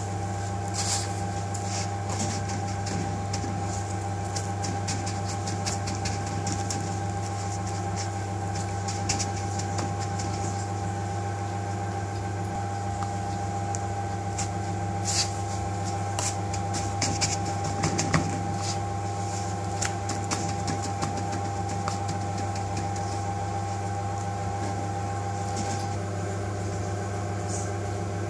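Steady hum of kitchen machinery with a thin high whine that cuts off near the end, under a few light clicks and knocks from handling food in a bowl and tub, loudest about two-thirds of the way in.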